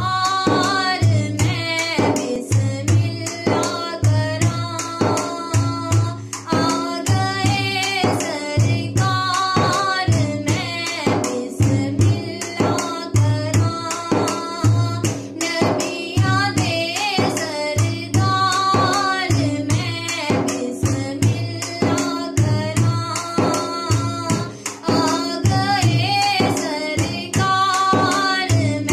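Background music: a song with a singing voice over drums keeping a steady beat.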